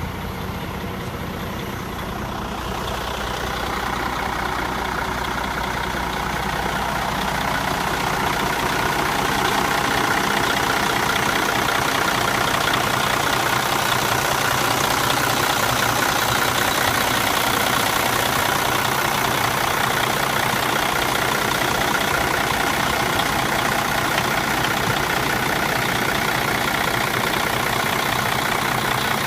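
Mercedes MBE 4000 inline-six diesel of a 2006 Freightliner M2 dump truck idling steadily, growing louder over the first ten seconds and then holding level.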